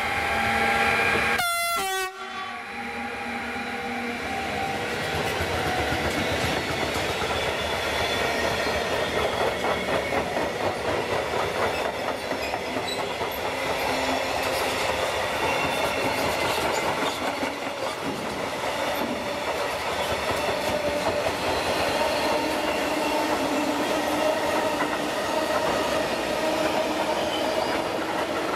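Electric freight locomotive sounding its horn in a steady chord for about the first two seconds, which ends abruptly. A long train of covered sliding-wall wagons and tank wagons then rolls past steadily, its wheels clicking rhythmically over the rail joints.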